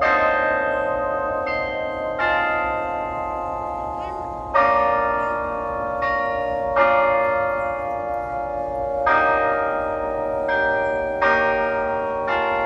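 The Delacorte Musical Clock's bells playing a slow tune, a new struck note every one to two seconds, each ringing on into the next.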